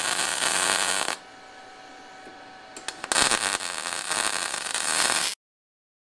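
MIG welding arc from a Titanium Unlimited 200 inverter welder on 120 volts, running 0.035 wire with 75/25 shielding gas, crackling and hissing steadily. The arc breaks off about a second in and strikes again about three seconds in. The sound cuts off abruptly to silence about five seconds in.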